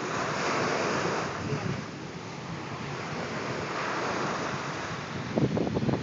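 Small sea waves breaking on a sandy beach and washing up the shore, in two swells of surf hiss. Near the end, wind buffets the microphone with gusty low rumbles.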